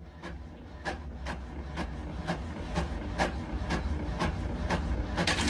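Sharp ticks about twice a second over a steady low hum, slowly growing louder.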